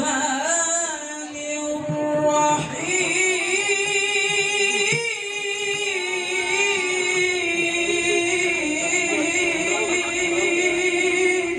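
Male qari reciting the Qur'an in the melodic tilawah style, amplified through a sound system. He holds long notes with melismatic ornaments, with a short break about two and a half seconds in before a long phrase resumes on a higher note.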